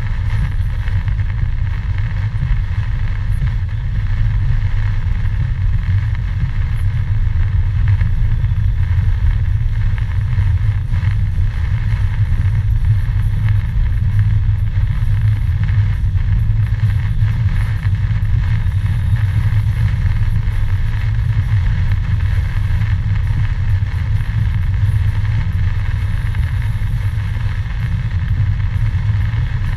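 Car driving on a wet road in heavy rain, heard from inside the cabin: a steady low rumble of engine and tyres with an even hiss above it.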